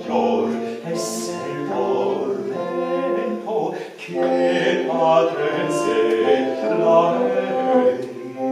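Small vocal ensemble singing together in harmony, holding long notes in several parts, with a brief break in the phrase about four seconds in.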